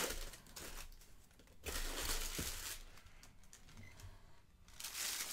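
Packaging being unwrapped by hand, crinkling and rustling in three bouts with short pauses between, as statue parts are taken out.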